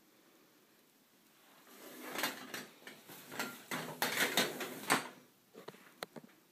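A quick, irregular clatter of clicks and knocks lasting about three seconds, followed by a few scattered single clicks near the end.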